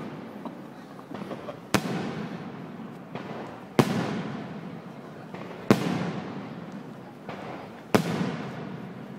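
Aerial firework shells bursting overhead: four loud bangs about two seconds apart, each followed by a rumbling echo that dies away, with smaller pops in between.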